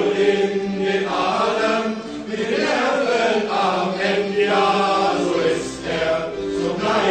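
A group of voices singing a German student drinking song in chorus.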